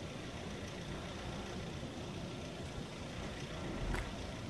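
Low, steady outdoor rumble like idling road traffic, with a single sharp click and a low thump about four seconds in.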